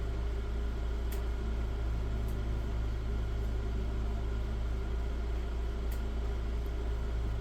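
Steady low hum of a running motor or fan, with a few faint clicks.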